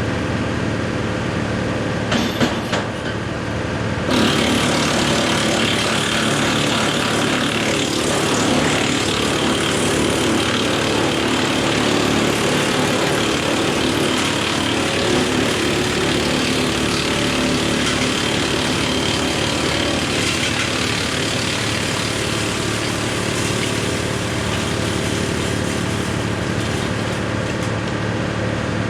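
John Deere 4066R diesel tractor running steadily, driving a Woodmaxx WM8 PTO wood chipper. A few knocks come about two seconds in, and about four seconds in a louder hissing whirr joins suddenly and holds.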